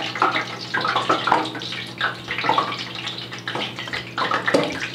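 Frying grease heating in a pot, sizzling with irregular crackling pops as water in it boils off. A steady low hum runs underneath.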